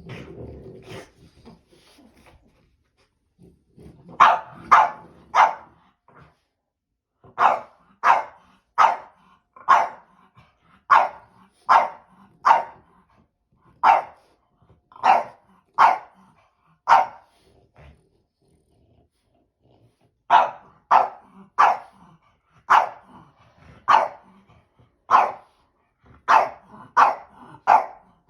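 French bulldog barking in short, loud barks, mostly in quick twos and threes, after a low grumble at the start; the barking breaks off for a couple of seconds past the middle, then resumes.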